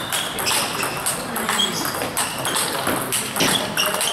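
Table tennis ball clicking off rackets and the table during a rally, with more ball clicks from a neighbouring table mixed in, many of the clicks ringing briefly high.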